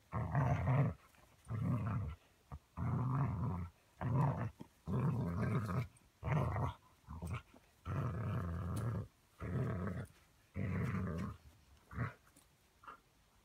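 A dog giving short, rough play growls, about a dozen in a row, each under a second or so, while gripping and pulling a rope tug toy; the growls die away near the end.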